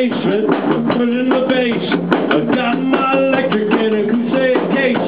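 Live rock band playing: an electric guitar riff repeating over a drum beat, steady and loud.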